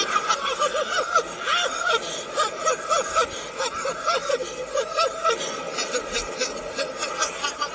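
A man laughing heartily, a rapid string of short laughs, played in reverse.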